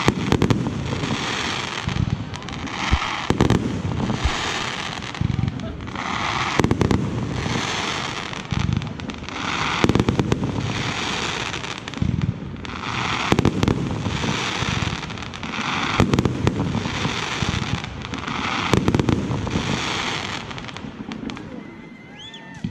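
Fireworks display: a steady run of loud bangs from bursting shells every second or two, with stretches of hiss between them. A few rising whistles come near the end.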